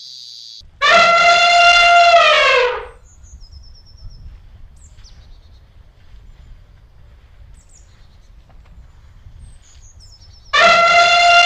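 An African elephant trumpets twice, about ten seconds apart, each call loud, about two seconds long and dropping in pitch at the end. Between the calls there is a low background rumble and a few faint bird chirps.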